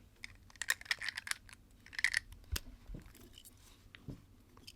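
LEGO plastic pieces clicking and rattling as they are handled and fitted, in two quick flurries of small clicks followed by a few single clicks.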